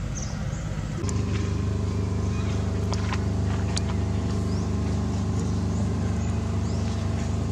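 An engine running steadily at a constant pitch, a low even hum that starts about a second in, with a few faint clicks over it.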